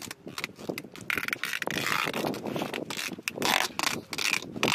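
Adhesive tape being pulled off its roll and wrapped around a wooden pole, in a run of repeated rasping rips.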